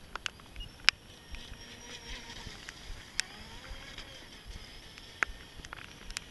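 Faint distant whine of a small RC speedboat's brushless electric motor (3S Li-Po, 60A ESC) running out on the water, its pitch swinging up and down. Several sharp clicks stand out over it, the loudest about a second in.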